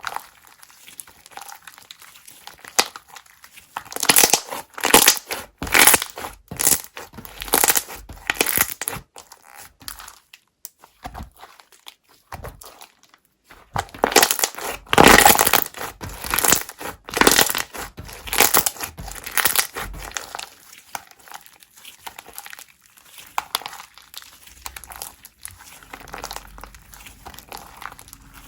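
Slime being squeezed and pressed by hand, making rapid trains of small clicking pops: two loud spells, about four to ten seconds in and again from about fourteen to twenty seconds, with quieter scattered clicks between.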